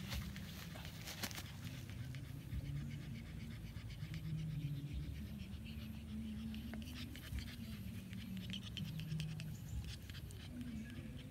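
Pug puppy panting, over a steady low hum.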